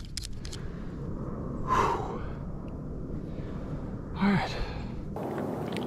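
A man sighing heavily twice, about two and a half seconds apart, the second with a short voiced note, over a steady low outdoor background.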